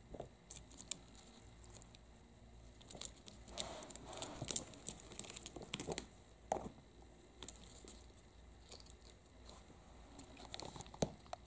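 Kittens' claws scratching and catching on a reed screen as they paw at it: scattered rustles and clicks of the stalks, busiest a few seconds in.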